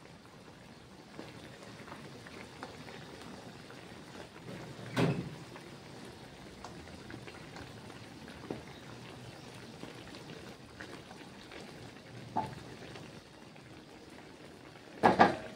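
Chicken pieces simmering in liquid in a wok, a steady bubbling. A spatula stirring them knocks against the pan a few times, with the loudest knocks near the end.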